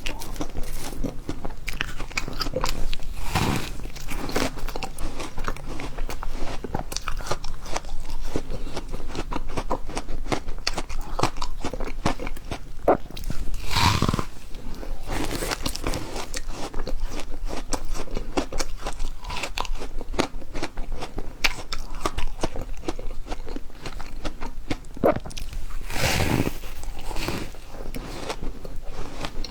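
Refrozen ice being bitten and chewed close to the microphone: a dense, continuous run of crisp crunches, with three louder, fuller bites along the way.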